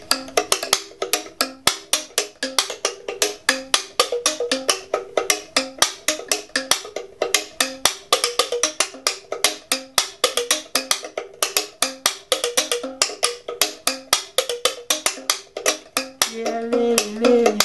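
Ndingi, a Cameroonian thumb piano made entirely of bamboo and raffia root, played in a fast, steady run of short plucked notes, about five a second.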